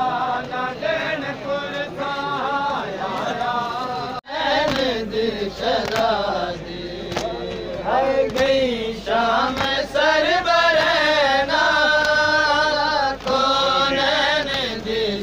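Men's voices chanting a noha, the rhythmic Shia mourning lament of Muharram, sung over the crowd with long held, wavering notes. The chant breaks off for an instant about four seconds in and then resumes.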